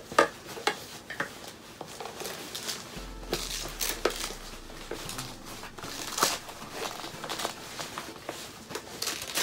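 Fabric rustling and scattered small plastic clicks and knocks as a bassinet's quilted liner and its white plastic clip pieces are handled and fitted onto the frame.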